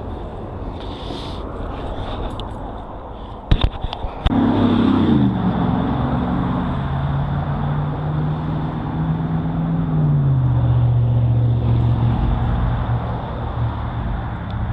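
Light rail train's electric drive whine. A few sharp knocks come about four seconds in. Then the whine starts, falls in pitch and settles into a steady hum over rolling noise, and it begins to rise again near the end.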